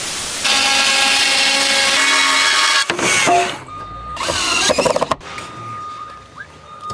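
A short burst of static noise at the cut, then cordless power tools working wood, a drill among them, their motors whining in short spells that rise and fall in pitch, with a thinner steady whine near the end.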